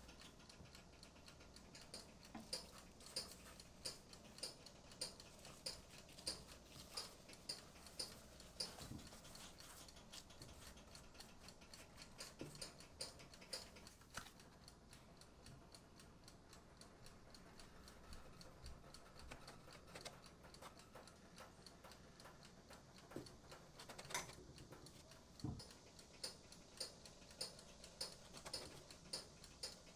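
Faint, regular ticking at about one tick a second that stops for a while in the middle and starts again, with a few soft knocks.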